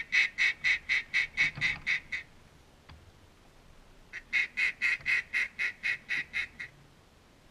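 A hunter's duck call blown in two long runs of quacks, about five a second. The first run is underway at the start and the second begins about four seconds in.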